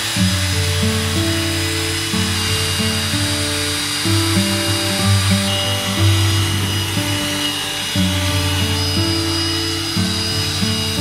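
Background music with a steady bass line over the continuous whine of a handheld electric drill-mixer, its paddle stirring sand-cement mortar in a plastic bucket.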